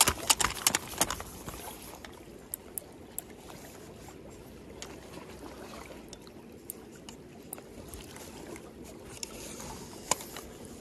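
Sea water lapping and sloshing among concrete tetrapod wave-breaker blocks, with a quick run of sharp clicks in the first second and scattered light ticks after.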